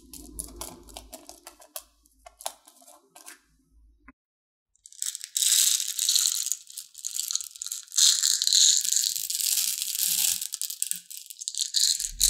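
Light clicks of a small plastic lidded container being handled, then, after a brief silence about four seconds in, a loud dense clatter of small plastic beads rattling against each other and the plastic cup as they are tipped out and poured.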